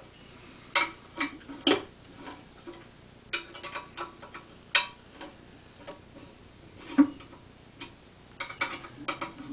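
Irregular sharp metallic clicks and clinks of hand tools and metal parts being handled on the engine at a workbench, with a duller knock about seven seconds in.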